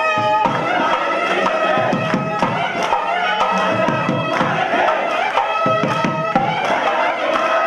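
Ayyappa devotional music: a melody of held notes moving step by step over steady drumming, with a crowd of voices.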